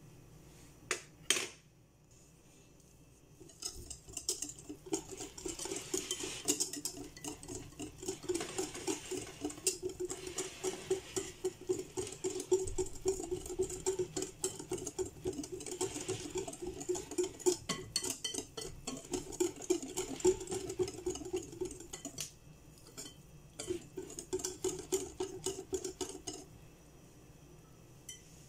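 Wire whisk beating pancake batter in a glass mixing bowl, its wires clicking rapidly against the glass. Near the end the whisking pauses briefly, resumes for a few seconds, then stops.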